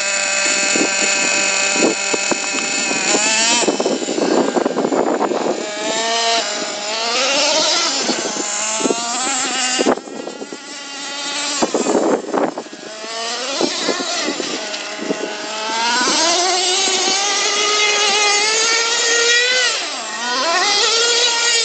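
Traxxas TRX 3.3 two-stroke nitro glow engine of an RC 4x4 monster truck running at a steady high pitch for the first few seconds, then revving up and down over and over as the truck accelerates and slows.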